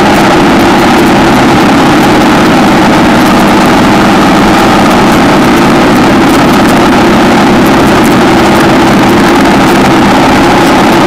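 Loud, steady running of a 1960 AJS 650 motorcycle's parallel-twin engine while the bike is being ridden.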